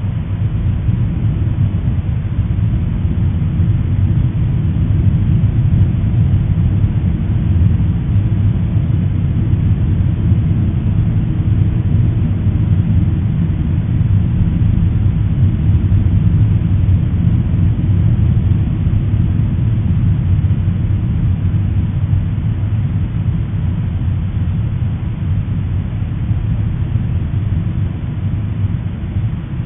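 Deep, steady rumble of Popocatépetl volcano's explosive eruption, swelling in at the start and easing off toward the end.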